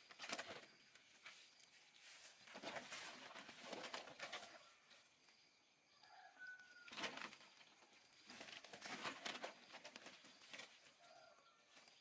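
Faint rustling noises coming in a few separate surges, with a few short bird calls in between.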